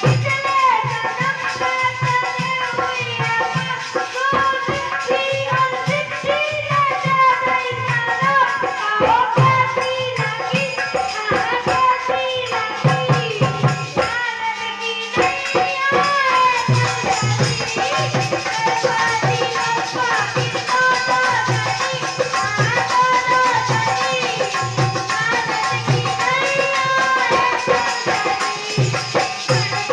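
A young girl singing a melodic song in a high voice over a steady drum beat and rattling percussion, with a short break in the music about halfway through.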